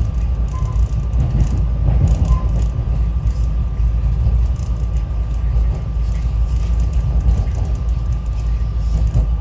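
SEPTA Regional Rail electric commuter train heard from inside the car while it runs along the line: a loud, steady low rumble of wheels on the rails, with a thin constant tone near 1 kHz over it.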